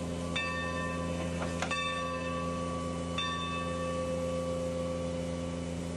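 Baldwin No. 45 steam locomotive's bell ringing in slow, even strokes about a second and a half apart, three strokes each ringing on, over a steady low hum. The middle stroke comes with a sharp clank.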